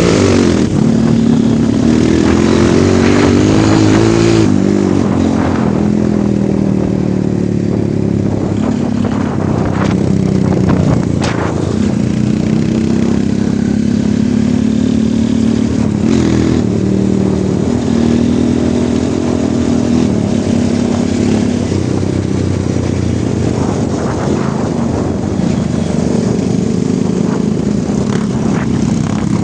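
Off-road motorcycle engine under way, its pitch rising and falling as the throttle is opened and eased off, with a couple of sharp knocks along the way.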